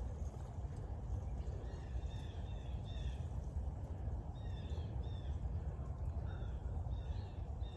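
Birds calling over a steady low rumble: short down-sliding chirps repeated in clusters, about two seconds in and again from the middle on.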